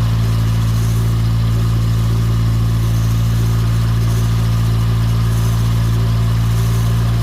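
Yugoslavian-built car's engine idling steadily, a constant deep hum with no change in speed.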